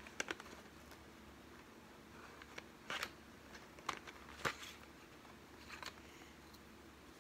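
Wooden colored pencils clicking against one another and the cardboard box as they are picked through, a few light scattered clicks, the loudest about three seconds in and again around four and a half seconds.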